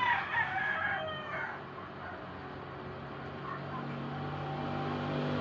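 A rooster crowing, its call trailing off in the first second or so. After that comes a low steady hum that grows slowly louder.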